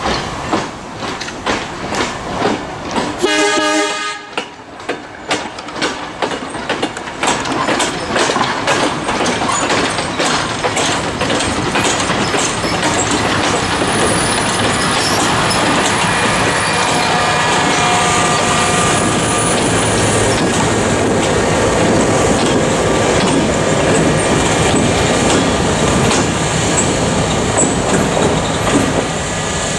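Train led by an MLW/ALCO C424 diesel locomotive rolling on jointed rail, its wheels clicking over the rail joints. A short horn sound comes about three seconds in. From about six seconds the rolling noise grows louder and steadier.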